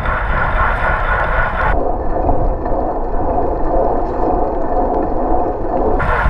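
Wind buffeting a bicycle-mounted action camera's microphone at racing speed, a steady rumbling rush with the hum of tyres and drivetrain beneath it. The sound turns muffled, losing its hiss, for about four seconds in the middle.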